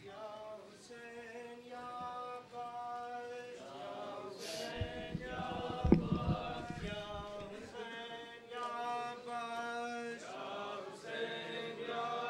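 Men's voices chanting in long, drawn-out notes with short breaks between phrases: a Shia mourning chant for Imam Hussain as matam begins. One sharp thump about six seconds in.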